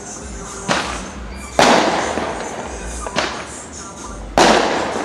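Fireworks going off: four sudden bangs, the two loudest about a second and a half in and near the end, each followed by a long, fading rumble.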